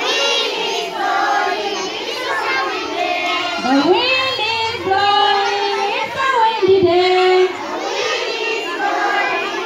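A group of young schoolchildren singing together, with a few long held notes in the middle.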